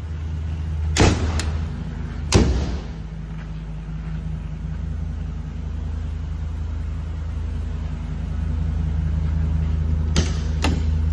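A Ford E450 ambulance's 6.8 L V10 gas engine idling with a steady low hum. Sharp knocks cut through it about a second in and at about two and a half seconds, the second the loudest, and two clicks come near the end.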